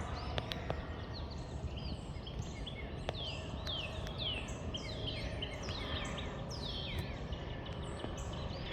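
Birds chirping over and over in short, quickly falling notes, over a steady low background rumble.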